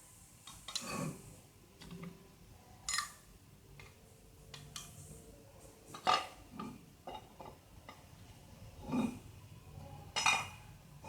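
Scattered metallic clinks and knocks of tools and steel parts as the stud nuts are undone on a tractor's clutch assembly, coming irregularly every second or so.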